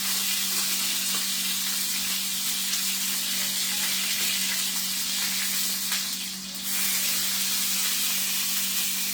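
Chuck roast searing in hot olive oil in a pan, a steady loud sizzle that dips briefly about six and a half seconds in, over a steady low hum.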